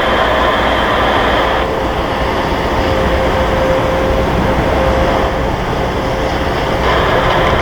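Strong wind buffeting the microphone: a loud, steady rumbling roar. A higher hiss drops out about a second and a half in and comes back near the end.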